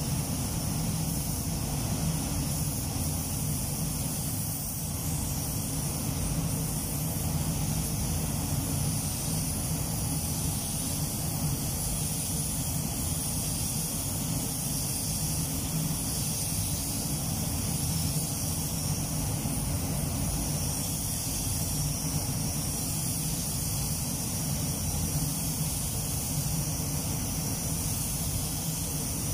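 Steady hiss and rush of air in a paint spray booth: the booth's ventilation running, with a compressed-air spray gun applying clear coat to a car body.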